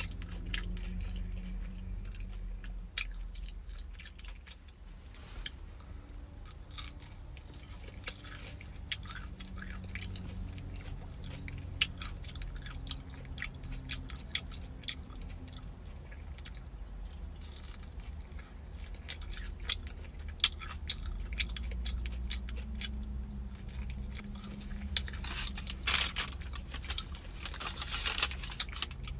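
Close-up chewing of a McDonald's hash brown, crunching with many small wet mouth clicks. Near the end comes a stretch of rustling.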